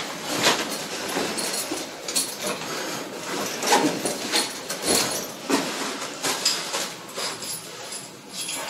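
Irregular rustling, crinkling and knocking of airway equipment being handled and unpacked: plastic packaging and hard plastic gear, with a few sharper clacks.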